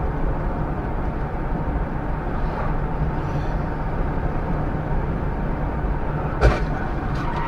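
Steady engine and tyre noise inside a car's cabin, cruising at about 75 km/h. One sharp knock comes about six and a half seconds in.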